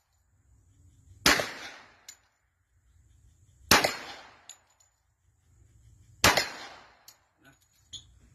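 Three pistol shots fired singly, about two and a half seconds apart, each with a short echoing tail and followed by a faint click.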